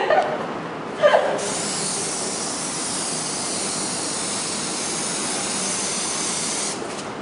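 Aerosol spray-paint can spraying onto window glass in one long, steady hiss of about five seconds that starts about a second in, just after a brief voice sound, and cuts off near the end.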